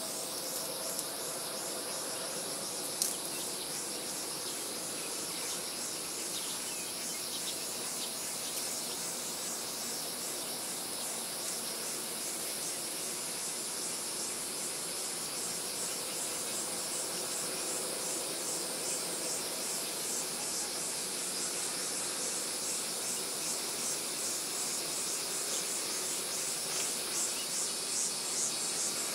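Insects chirping in a rapid, pulsing high-pitched trill over a steady background hiss. The pulsing grows louder near the end, and there is one faint click about three seconds in.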